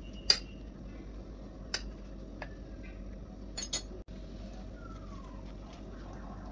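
Five sharp clinks of tableware, the first the loudest, over a steady low hum.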